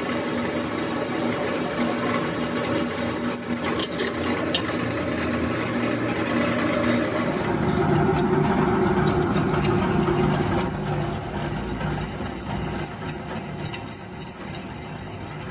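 A workshop machine running steadily with a motor hum. About seven seconds in its sound changes to a louder, rougher running, with quick high-pitched ticking added.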